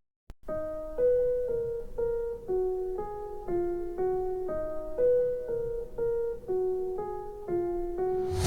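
A gentle keyboard melody in single piano-like notes, about two a second, starting half a second in after a brief silence. It is a music test track played back through a smart speaker.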